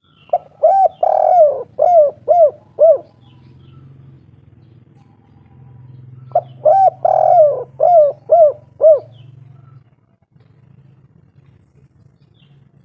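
Spotted dove (derkuku/tekukur) cooing its 'kuk 3' song twice: each phrase is two short notes, one longer coo, then three short 'kuk' notes. The phrases come about six seconds apart.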